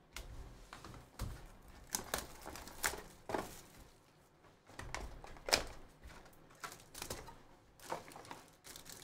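A cardboard trading-card hobby box and its foil pack being handled on a tabletop: irregular light taps and clicks with soft rustling of packaging.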